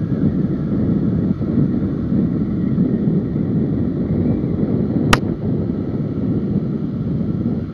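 Steady rush of wind over the microphone of a motorcycle-mounted camera riding at highway speed, with the bike's running mixed in. A single sharp click about five seconds in.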